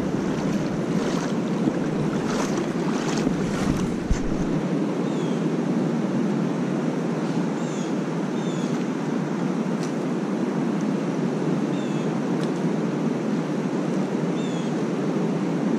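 Steady rush of river current flowing past the feet, with some wind noise on the microphone.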